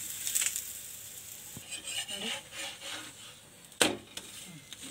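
Flat steel spatula scraping and tapping on a hot tawa while a paratha is flipped and pressed, over a soft sizzle of frying. A sharp metal clack about four seconds in is the loudest sound.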